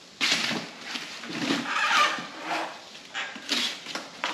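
Cardboard and packing paper rustling and crinkling as a shipping box is unpacked by hand, in several separate rustles.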